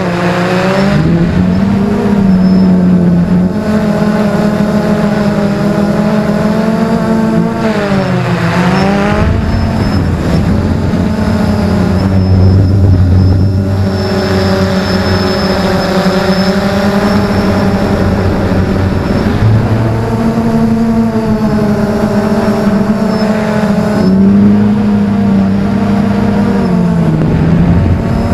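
XK Detect X380 quadcopter's motors and propellers humming loudly, heard from its onboard camera. The pitch slides down and up as the motors change speed, with a deep dip about eight seconds in and another near the end.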